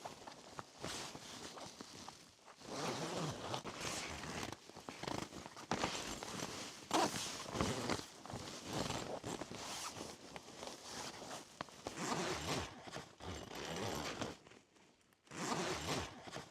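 Tent zippers being pulled along heavy fabric, in a series of irregular strokes with short pauses.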